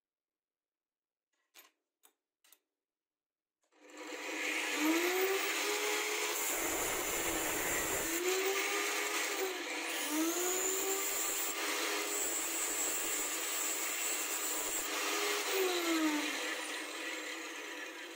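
A few faint clicks, then about four seconds in a stand-mounted Sparky angle grinder runs and grinds the end of a steel bolt on its disc. The motor's pitch dips and recovers several times as the bolt is pressed in, and the grinding eases off near the end.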